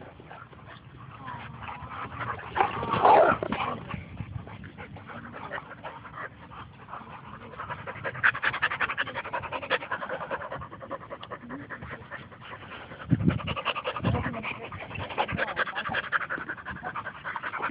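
Dogs panting hard after play, the panting quick and steady in the second half. A short loud call rings out about three seconds in, and two low thumps come about thirteen seconds in.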